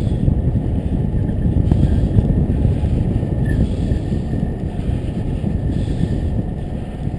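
Steady wind rush on the microphone of a bicycle-mounted camera while riding.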